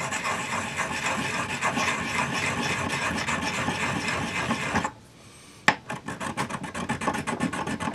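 A borax cone being ground on a rough ceramic dish with a little water to make a soldering flux paste: a steady gritty rubbing. About five seconds in it stops briefly, a single click follows, then the grinding resumes in quick short strokes.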